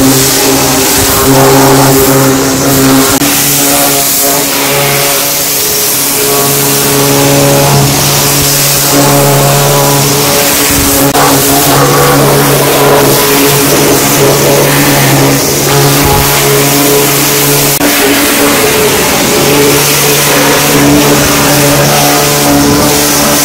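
Industrial high-pressure washer (250 bar, 7.5 HP) spraying a water jet onto a dump truck's chassis and underbody: a constant hiss of spray over a steady machine drone that dips briefly now and then.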